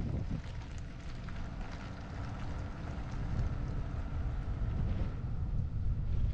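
Wind rushing over the microphone with a steady low rumble of tyres on the road, heard from a camera on a bass boat being towed on its trailer behind a pickup truck.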